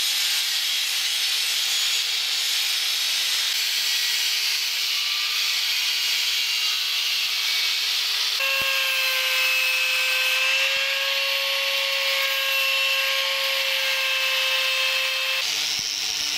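Angle grinder with a cutting disc cutting through a metal plate: a steady motor whine over a loud, dense grinding hiss, with an abrupt jump in the sound about halfway through. About a second before the end it gives way to a grinder running a wire cup brush over the plate.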